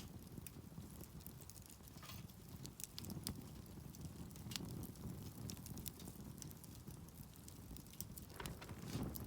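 Campfire wood burning, with scattered sharp crackles and pops over a faint low rumble.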